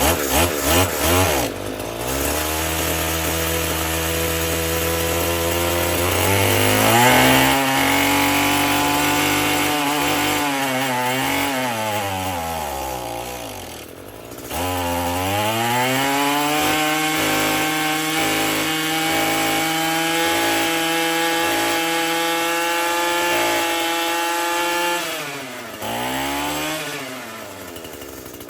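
Echo SRM-225 string trimmer's small two-stroke engine running during carburetor tuning: a few quick blips of the throttle, then a stretch at idle, then revved up and held at high speed twice for several seconds each. Between the two runs the revs fall away sharply, about 14 seconds in, before it picks up again. It drops back down near the end.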